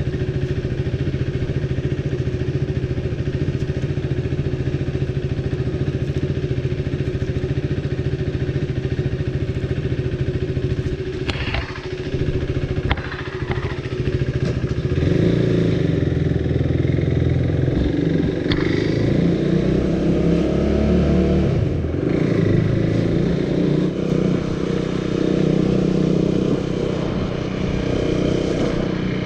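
KTM Duke 390's single-cylinder engine running steadily at low revs, heard from on the motorcycle. A few sharp clicks come about midway, then the engine gets louder and its revs rise and fall as the bike is ridden harder.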